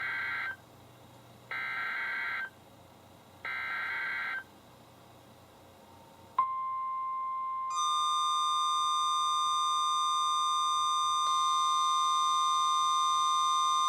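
NOAA Weather Radio EAS alert: three one-second bursts of SAME header data, the digital screech, about two seconds apart. About six seconds in, the steady 1050 Hz warning alert tone starts, and a second, higher steady tone joins about a second and a half later, signalling a warning about to be read.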